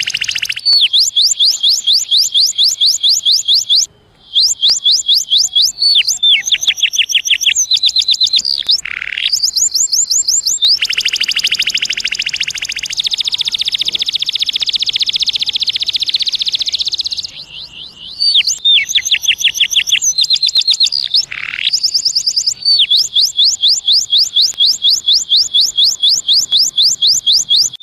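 Domestic canary singing: fast trills of repeated high chirps, with a long continuous buzzing roll in the middle and brief breaks near the start and about two-thirds through.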